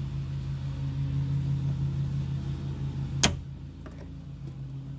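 A steady low hum, with one sharp plastic click about three seconds in as the power window switch is worked out of the door panel.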